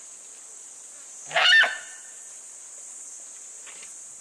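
A wounded Timor deer gives a single short, honking distress call about a second and a half in.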